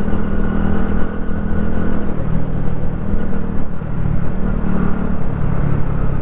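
Motorcycle engine running at a steady speed while riding, with low wind noise underneath.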